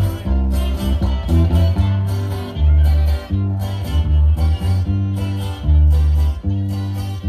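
Dance music with guitars over a strong bass line and a steady beat.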